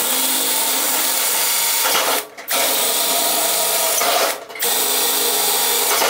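A 12-volt electric drill boring out pilot holes in the sheet-metal wall of a cabinet. It runs in three steady stretches with two short stops, about two and four seconds in.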